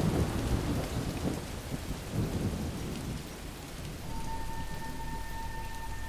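Rain falling with a low rumble of thunder that fades over the first second or two. About four seconds in, a steady high tone joins over a low hum.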